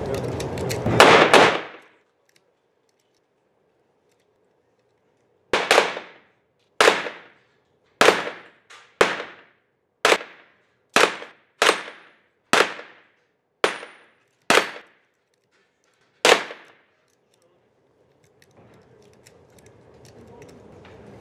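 Gunshots echoing in an indoor shooting range during a practical-shooting stage run. A quick loud cluster of shots comes in the first two seconds, and after a pause about eleven single shots follow roughly a second apart, each ringing off into the hall.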